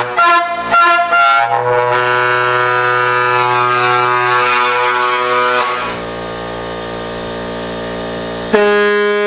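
Air horns sounding a chord of several tones. They are blipped in quick stuttering blasts, then held steady for about four seconds before dropping to a quieter held chord. A new, louder horn blast with a different pitch cuts in sharply near the end.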